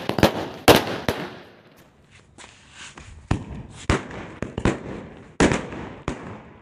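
Diwali firecrackers going off on the ground: a run of about eight sharp bangs with crackling between them, irregularly spaced, with a short lull about two seconds in.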